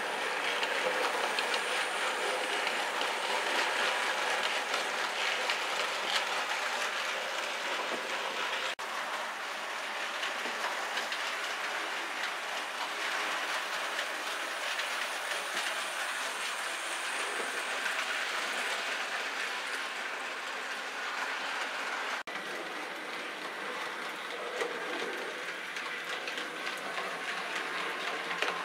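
Model railway train of tank wagons running along the track behind a model steam tank locomotive: a steady running noise of wheels on rail, broken by two brief dropouts.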